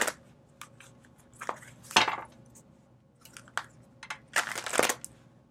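Rider-Waite tarot cards being shuffled by hand: scattered soft clicks with a couple of short rustles, one about two seconds in and a longer one near the end.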